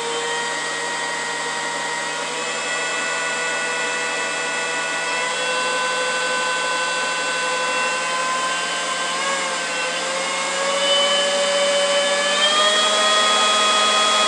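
Makita 18-volt brushless cordless leaf blower running with a steady whine. Its speed wavers about two-thirds of the way through and then steps up twice, higher in pitch, before the whine starts to fall away at the very end.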